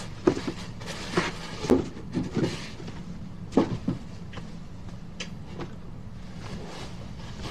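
Gift packaging being handled and opened, a series of light knocks and clicks in the first few seconds, then only faint ticks.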